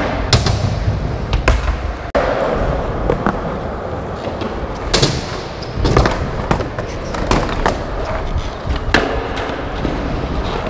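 Skateboard wheels rolling on a smooth concrete floor, broken by repeated sharp clacks of the board hitting the ground. They echo in a large indoor skate park hall.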